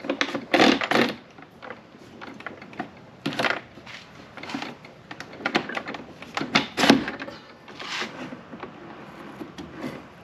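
Irregular metal clunks, clicks and scrapes of a wood lathe's fittings being handled and locked: the tool rest and tailstock slid along the lathe bed and clamped, with the log set between centres. The loudest knocks come about a second in and near seven seconds.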